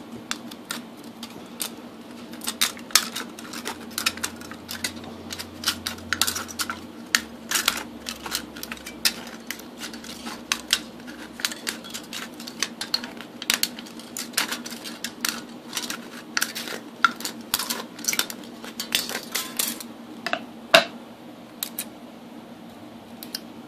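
Scissors snipping through the thin metal wall of a can along a score line: a run of irregular sharp metallic clicks and crinkles.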